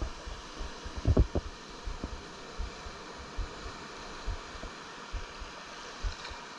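Small surf washing up the beach as a steady hiss, with irregular low thumps on the body-worn camera's microphone and one stronger thump about a second in.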